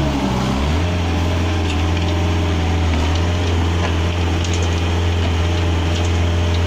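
Diesel engine of a compact JCB backhoe loader running steadily under load while its front bucket scoops and lifts gravel; the engine note wavers briefly just after the start.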